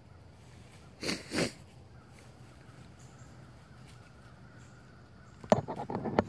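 Close handling noise from a hunter's gear and camera in a tree stand: two short rustles about a second in, then a cluster of sharp clicks and knocks near the end as the camera is moved.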